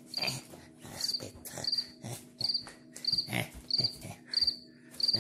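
Cricket chirping from a recording played on a phone: short high trills of a few quick pulses, repeating about one and a half to two times a second. Several short, louder noises come between the chirps.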